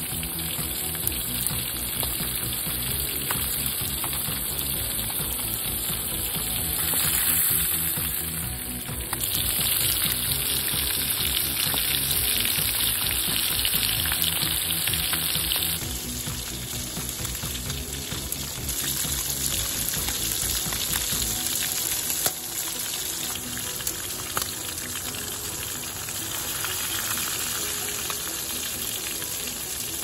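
Fish frying in oil in a small pan over a gas camping stove, sizzling steadily.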